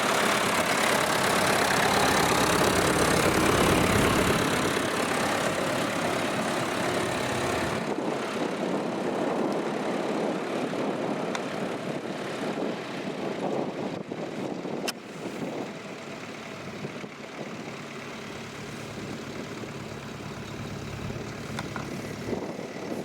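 Tractor engine running, loudest in the first few seconds; the sound drops abruptly about eight seconds in and carries on more quietly.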